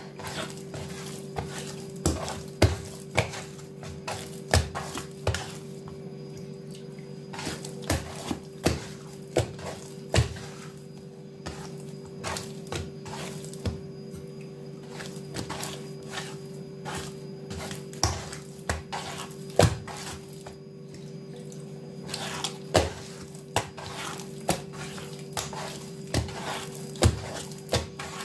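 Hands beating and kneading a soft, wet yeast dough for sfenj against a woven wooden bowl: irregular slaps and squelches, about one or two a second, thinning out for a while in the middle, over a steady low hum.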